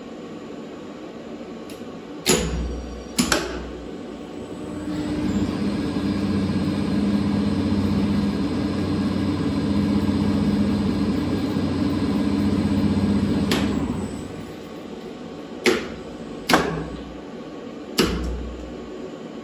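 Lift traction machine running one trip. Two sharp clunks come about two seconds in. The electric motor and gearbox then hum up to speed, run steadily for about nine seconds, and wind down to a stop, followed by three more clunks as the machine's brake and switchgear act.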